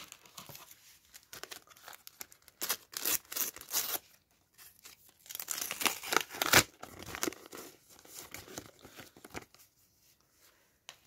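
A Topps sticker packet being torn open by hand: the paper-foil wrapper rips and crinkles in several irregular strokes, loudest in the first two-thirds. It is followed by softer rustling as the stickers are handled near the end.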